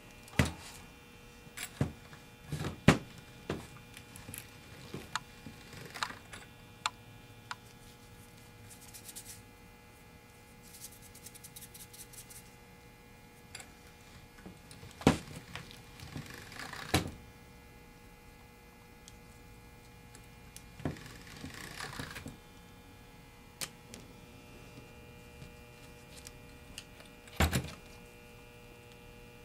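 Scattered knocks, thunks and clicks of a metal hand-cranked pasta machine being set down on a table and worked to roll polymer clay into a sheet, with a run of quick clicks partway through, over a faint steady hum.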